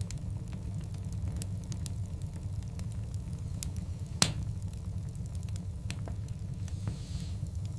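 Wood fire of large burning logs crackling over a steady low rumble, with scattered small snaps, one loud pop about four seconds in, and a soft hiss near the end.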